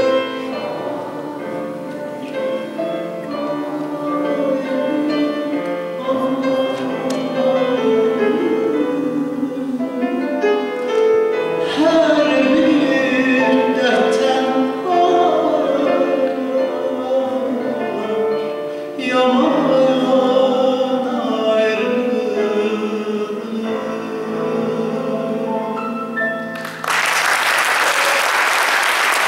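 A man singing in a classical style to grand piano accompaniment. About 27 seconds in, the song ends and the audience breaks into applause.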